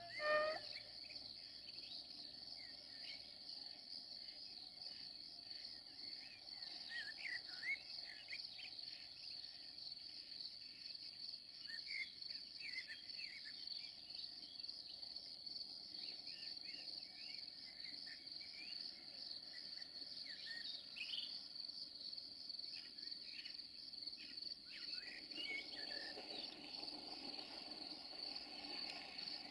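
Crickets chirring continuously at a high pitch, with scattered short bird chirps over them. A brief rising call at the very start is the loudest moment, and a faint low rumble builds near the end.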